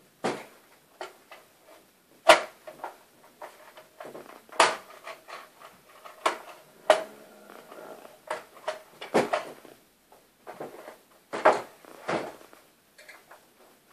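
Plastic clip catches on a Kyocera laser printer's side panel clicking and snapping loose as the panel is prised off, some with a screwdriver. About eight irregular sharp clicks and knocks, the loudest about two seconds in, with softer plastic rattling between them.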